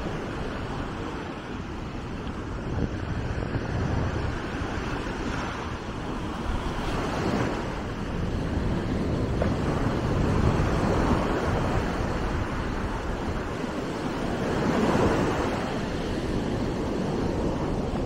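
Mediterranean surf breaking on a sandy beach, with foam washing up the shore. It is a steady rush that swells louder every few seconds as each wave comes in.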